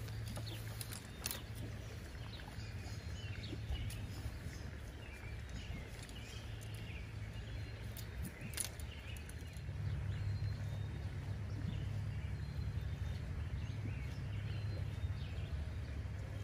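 Outdoor ambience: birds chirping here and there over a steady low hum that grows slightly louder about ten seconds in, with a few sharp clicks.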